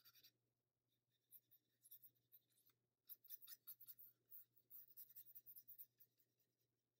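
Faint scratchy strokes of a watercolor paintbrush's bristles on paper, in quick runs about a second in and again from about three to six seconds in.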